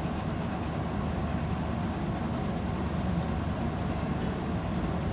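Steady low rumbling background noise with no clear events.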